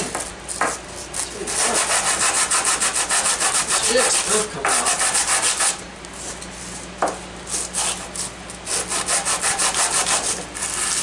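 Small engine intake manifold rubbed back and forth on 80-grit sandpaper laid flat on a bench: quick rasping strokes, about five a second, sanding stuck-on gasket material and sealant off its mounting face. Two long runs of strokes with a short pause between them, about halfway through.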